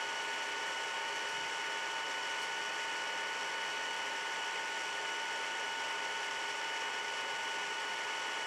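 Steady background hiss with a few faint, thin, high steady tones, like electrical whine from the recording equipment; no knocks.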